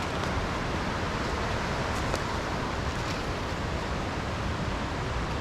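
Steady rush of fast-flowing creek water, a constant even noise, with a few faint clicks about two and three seconds in.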